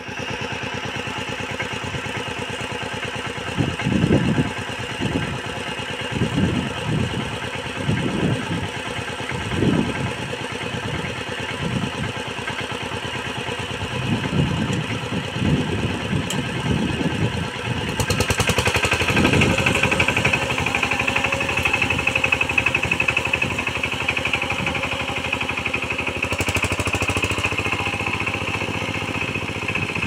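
Diesel power tiller engine running steadily under load as the machine churns through a flooded paddy field, its note swelling unevenly now and then. The sound turns brighter and louder about eighteen seconds in.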